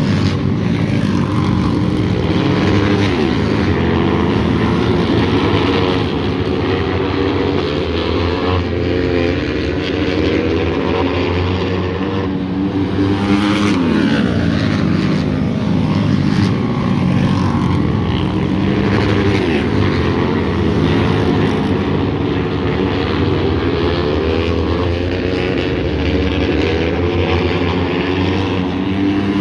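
Several dirt-track racing motorcycles running hard around a dirt oval, their engines overlapping and rising and falling in pitch as the riders throttle through the turns and down the straights.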